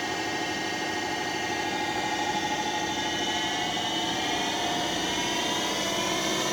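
Spindle of a Southwestern Industries Trak DPM5 CNC bed mill running at about 2200 RPM in high gear while the power quill feed lowers it: a steady, super quiet whine of several tones that bend gently in pitch.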